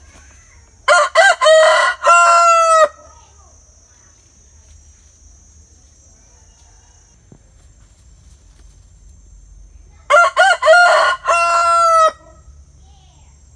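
Rooster crowing twice, about eight seconds apart. Each crow lasts about two seconds: a few short notes, then a long final note.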